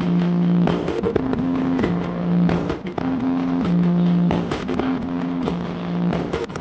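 Loud music played through a truck-mounted horeg sound system of stacked speaker cabinets: a melody that steps back and forth between two held low notes, with scattered sharp hits.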